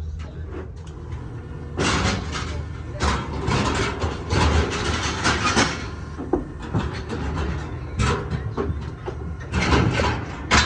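Steel bucking-chute rails and gates clanking and rattling as a bull shifts inside the chute, in runs of bangs about two seconds in and again in the second half, over a low steady hum.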